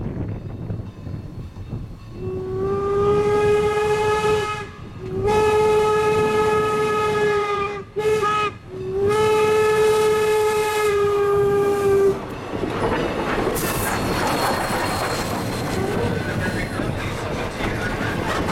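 Strasburg Rail Road No. 475, a 4-8-0 steam locomotive, sounds its steam whistle in two long blasts, a short one and a long one, the grade-crossing signal. About two seconds after the last blast ends, the locomotive and passenger coaches pass close by with a steady rumble of wheels on rails.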